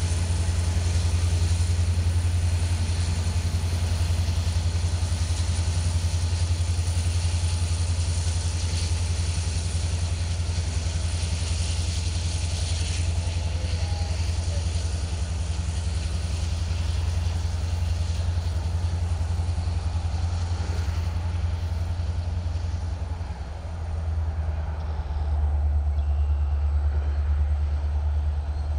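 Diesel freight locomotive running steadily, a deep engine hum with a thin high whine above it. About two-thirds of the way through, the engine note shifts and the whine drops slightly.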